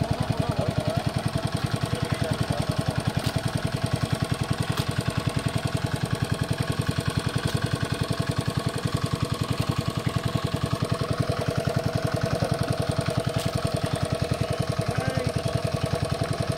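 A small engine running steadily at a constant speed, with a fast, even knocking beat.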